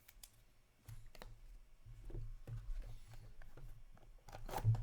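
Light clicks and taps of trading cards and card holders being handled and set down on a table, with a low rumble of handling throughout.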